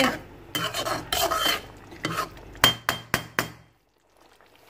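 A metal spoon stirring and scraping chicken karahi gravy in a metal karahi, with a quick run of sharp clinks of spoon on pan about three seconds in. The sound then cuts out to near silence.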